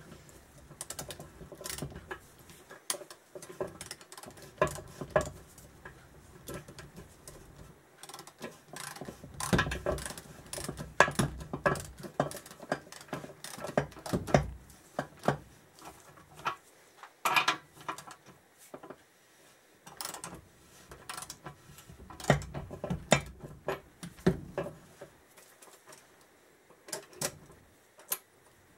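Socket ratchet clicking in repeated strokes as a nut is tightened on a spindle through a Suzuki Hayabusa swingarm, drawing a new swingarm bearing into its bore in place of a threaded-bar bearing press. The clicks come in bursts with short pauses between strokes.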